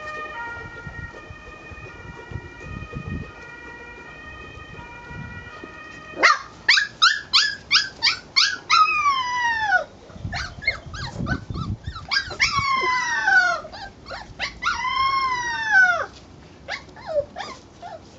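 Bearded Collie puppies yelping and howling in high cries. About six seconds in comes a quick run of short yelps, then longer howls that slide steeply down in pitch. Before that, a steady high tone changes pitch in steps.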